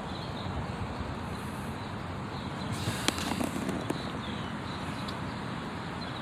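Steady outdoor background noise, with a few short, sharp clicks about three and four seconds in.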